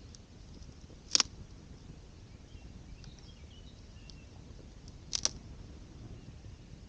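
Small wood campfire crackling: two sharp pops, about four seconds apart, over a quiet background.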